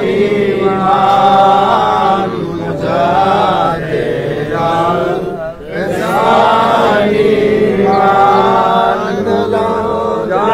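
Men chanting a devotional refrain in long, drawn-out phrases, with short breaks between them.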